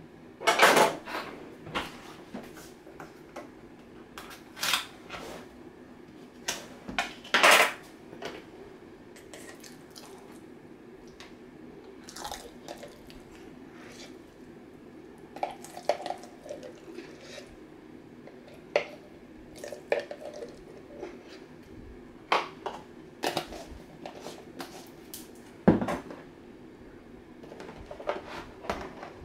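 A metal spoon clinking, knocking and scraping against a mixing bowl and a mayonnaise jar as mayonnaise is scooped out, in irregular strokes with a few sharper knocks, over a faint steady hum.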